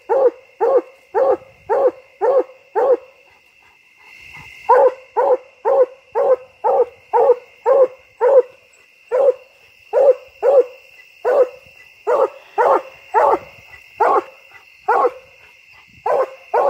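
Black and tan coonhound barking treed at the base of a tree: short, loud barks about two a second, with a brief pause about three seconds in. It is the bark a hound gives to mark quarry it has treed.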